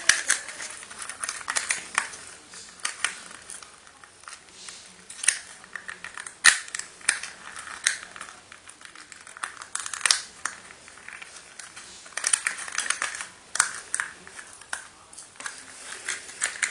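Handling noise of plastic parts and packaging: a string of irregular sharp clicks and taps with rustling and crinkling between them.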